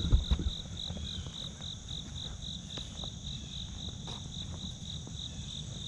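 Insects chirping: a high, even chirp pulsing about four times a second over a steady higher insect buzz, with a low rumble underneath and a few low thumps in the first half-second.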